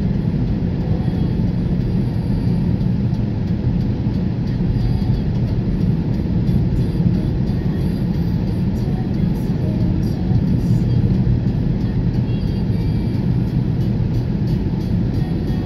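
Steady road and engine noise of a car driving at speed, heard from inside the cabin: a constant low drone with no sudden changes.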